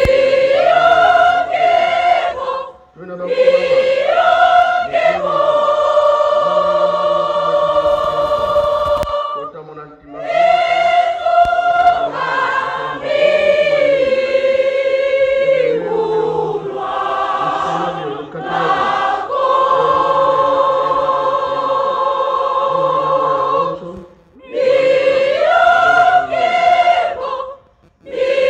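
Women's choir singing a hymn in sung phrases with short pauses between them, some notes held for several seconds.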